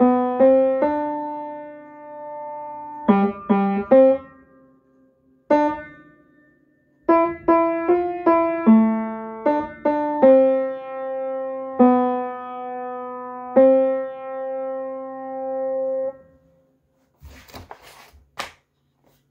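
Upright piano played slowly in short phrases: single notes and held chords that ring and fade, with gaps between phrases. The last chord dies away about sixteen seconds in, and a sheet-music page is then rustled as it is turned.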